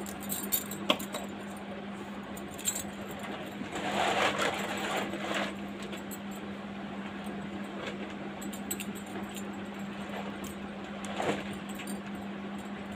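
Bangles clinking and rattling as they are worked onto a hand, in small scattered clicks, with a brief rustle about four seconds in. A steady low hum sits underneath.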